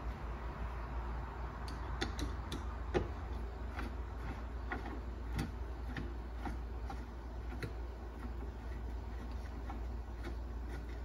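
Subwoofer mounting screws with lock washers being turned by a hand screwdriver, giving scattered light clicks at irregular spacing, about one a second, over a low steady hum.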